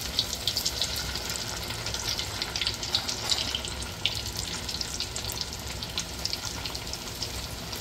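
Breadcrumb-coated yellowtail snapper fillets frying in oil at a little over 400 degrees, hot enough to smoke. The oil sizzles steadily with many small crackling pops.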